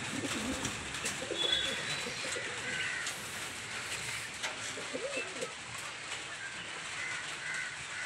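Homing pigeons cooing in two short bouts, about a second in and again about five seconds in.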